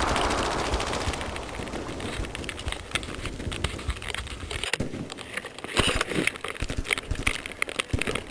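Airsoft guns firing on full auto: a fast, even rattle for about the first second, then irregular single cracks and clicks.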